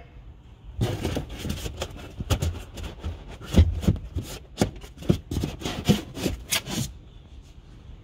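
Foam toolkit tray pieces being pulled out of a car boot around the spare wheel: a rapid run of rubbing scrapes and knocks against the boot floor, starting about a second in and stopping near the end, with one louder knock about halfway.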